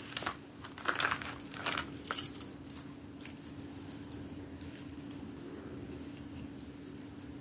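Unakite stone chip beads clicking and beading wire rustling as three strands are worked through a large ball bead: a few light clicks and rustles over the first three seconds, then only a faint steady hum.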